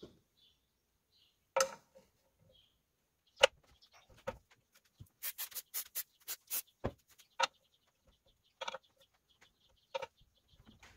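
Aerosol can of penetrating oil sprayed in about seven short quick squirts around the middle, worked into a rusted, seized engine's flywheel shroud. A few single metallic knocks and clanks from handling the engine cover and tools come before and after.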